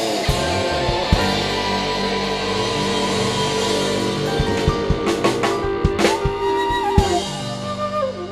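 Live dangdut band playing through a PA at a sound check: held keyboard and guitar notes over a drum kit, with a quick run of drum hits a few seconds in, then the level falls away near the end.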